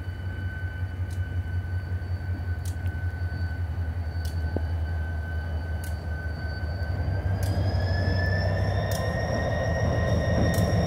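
Susquehanna (NYSW) diesel-electric locomotive 3618 approaching light, its engine rumbling and growing steadily louder as it nears. A steady high whine rides over the rumble and rises in pitch about seven to eight seconds in. Wheel and rail noise builds toward the end.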